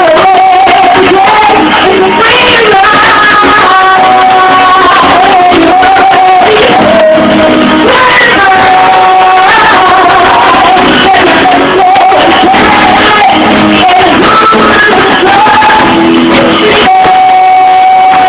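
Music with singing, recorded very loud: a melody moving over a steady accompaniment, with a long held note near the start and again near the end.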